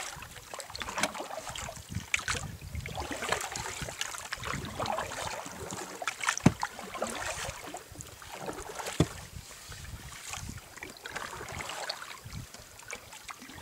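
A wooden paddle dipping and pulling through calm lake water, stroke after stroke, as a dugout canoe is paddled, with splashing and dripping from the blade. Two sharp knocks come about halfway through and again a few seconds later.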